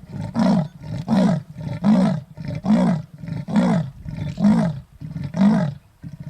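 Male lion's territorial roar in its grunting phase: a loud series of about eight deep grunts, one roughly every second, spacing out slightly towards the end.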